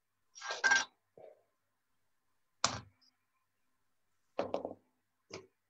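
A few short, separate noises picked up by a laptop microphone on a video call: breathy puffs and a sharp knock about two and a half seconds in, with dead silence between them where the call's noise suppression cuts out the background.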